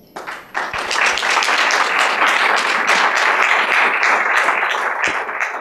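Audience applauding, starting about half a second in and quickly building to steady clapping from many hands.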